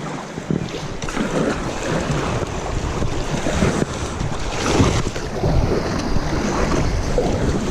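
Fast river water rushing and splashing around a small kayak, with wind buffeting the microphone in a low rumble.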